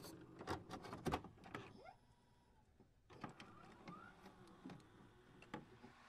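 Faint glitchy electronic sound effects: scattered clicks and short pitch sweeps, with a nearly silent gap of about a second midway.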